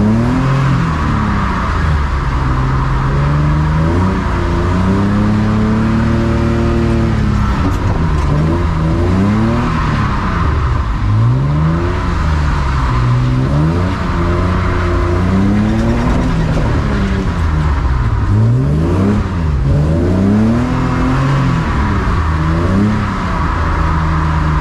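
BMW E36 drift car's engine being driven hard, its pitch climbing and dropping over and over as it revs up and comes off the throttle.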